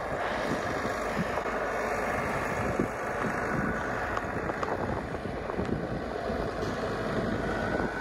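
Versatile 150 tractor's diesel engine running steadily as it drives up hauling a round hay bale on its front loader, with some wind noise on the microphone.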